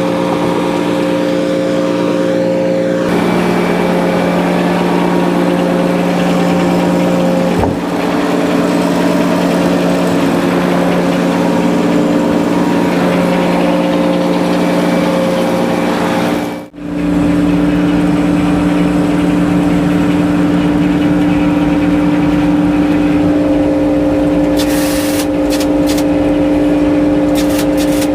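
A sawmill's engine running steadily at a constant speed. The sound drops out briefly about 17 seconds in, and there are a few faint clicks near the end.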